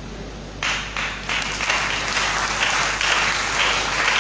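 Church congregation clapping, starting about half a second in and going on in a quick, even rhythm.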